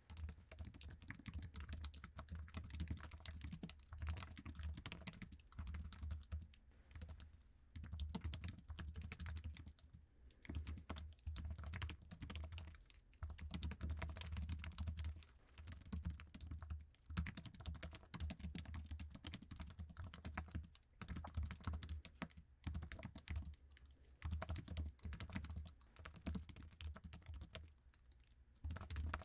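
Fast, continuous typing on an Apple iMac keyboard with low-profile scissor-switch keys, a soft and sticky-sounding patter of keystrokes. It breaks off in a few brief pauses.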